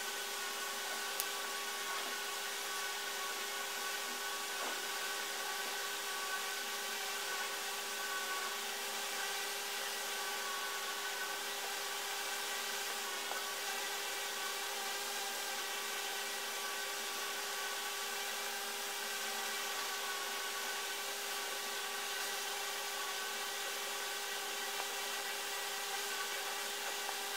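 Steady background hiss with a faint, even whine of several steady tones, unchanging throughout.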